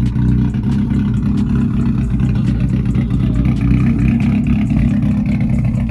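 A motor vehicle's engine running steadily at an even low pitch, with a faint higher whine coming in about halfway through.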